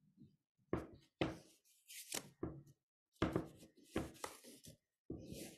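Irregular knocks and taps on a desk or tabletop, about six over five seconds, each sharp and quickly fading.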